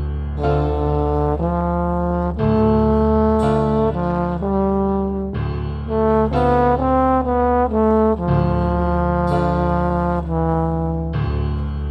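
Instrumental music from a small orchestra recording: a brass melody of held notes moving in steps over a sustained bass, in phrases that break off briefly about 2.5, 5.5 and 8 seconds in.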